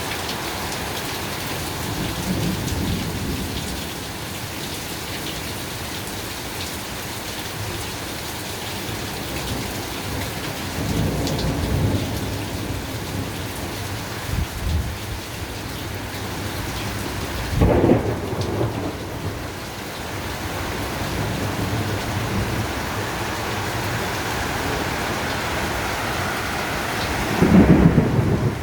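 Heavy rain falling steadily through a thunderstorm, with thunder rumbling several times. There is a sharp clap about two-thirds of the way through, and the loudest peal comes near the end.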